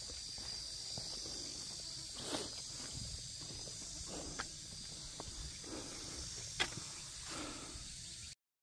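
A hiker's footsteps on a mountain trail, a handful of uneven steps, over a steady high insect buzzing. The sound cuts off suddenly near the end.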